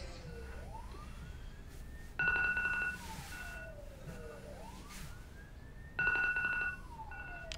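Siren wailing, its pitch rising and falling about every four seconds, cut twice by a louder blaring blast lasting under a second.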